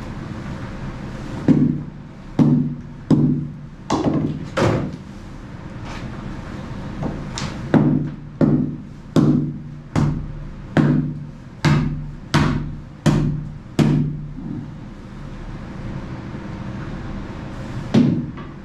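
Repeated hammer blows on demolition work in a fiberglass boat hull, breaking out the rotten wooden shaft-alley stringer and its concrete: five strikes, a pause, then a steady run of about ten more at a little over one a second, and one last blow near the end. Each blow lands sharp and rings briefly with a low tone.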